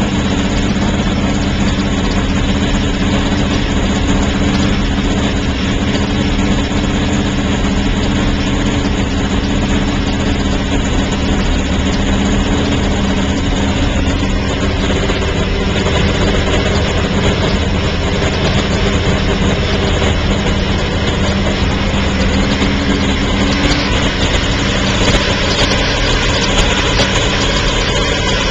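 Porsche 917's air-cooled flat-twelve racing engine idling steadily, its horizontal cooling fan spinning.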